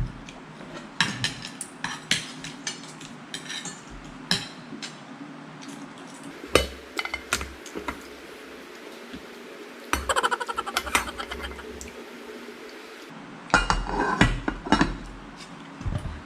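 Spoons and forks clinking and scraping on plates as people eat, in scattered clusters of short clicks.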